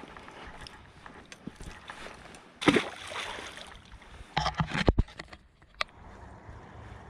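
An asp released back into the river: a loud splash and slosh of water a little under three seconds in, followed by a few sharp knocks about a second later.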